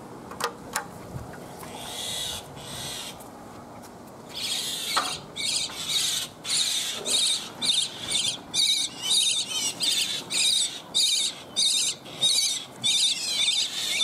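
Indian (common) myna in the pool water giving harsh, repeated distress calls, about two a second, starting about four seconds in.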